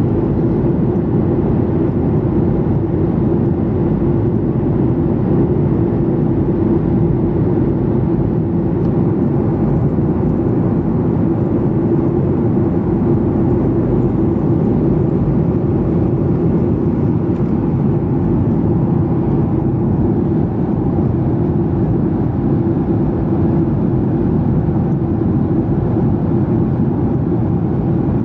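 Steady cabin noise inside a Boeing 737-800 in flight: the even rush of airflow and its CFM56 turbofan engines, with a steady low hum running through it.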